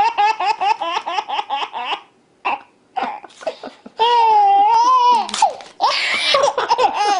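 A baby laughing hysterically: a quick run of high-pitched laugh pulses, a short pause for breath, then one long wavering squeal about four seconds in, followed by more breathy bursts of laughter.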